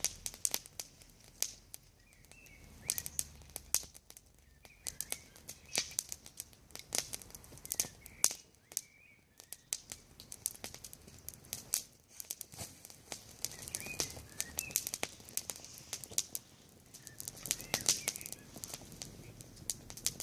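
Wood campfire crackling, with sharp irregular pops and snaps. A few faint bird chirps come and go.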